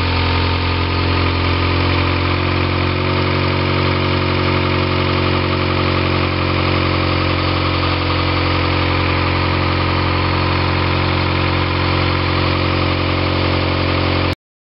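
Mazda B6/BP SOHC inline four-cylinder engine idling steadily, run to check the new thermostat gasket for coolant leaks. The sound cuts off suddenly near the end.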